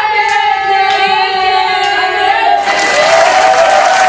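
Several women and girls singing and cheering together in long, drawn-out voices, with a few hand claps. About two-thirds of the way in, a loud, dense wash of noise joins them.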